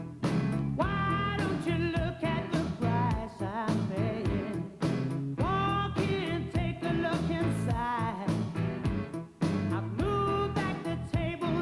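Rock-pop band music: a singer's voice with vibrato over a band with a steady beat.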